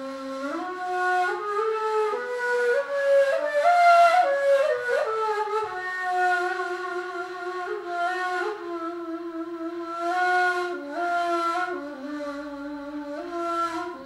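Ney, the Turkish end-blown cane flute, playing a breathy solo melody in makam Hicaz. The line climbs in steps over the first four seconds, then steps back down and settles into lower held notes.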